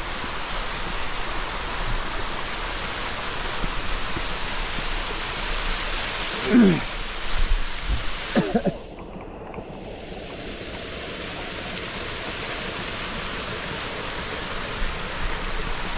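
Rushing water of a waterfall, a steady noise; it drops off suddenly about nine seconds in and slowly swells back.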